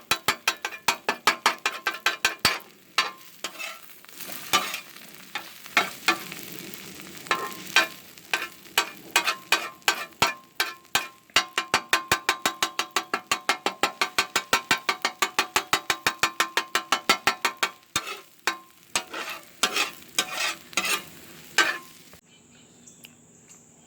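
Metal spatula rapidly chopping scrambled eggs on a Blackstone steel griddle top, clacking about five times a second in runs, with a light sizzle underneath. The chopping stops near the end, leaving a faint hiss.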